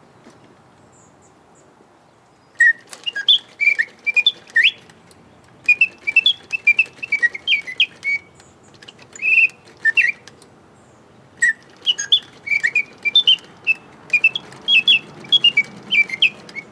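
Antique Bontems double singing bird automaton whistling birdsong: its bellows feed a slide whistle that gives quick, sharp chirps and trills in phrases. It starts after a short quiet stretch and breaks off briefly near the middle before singing again.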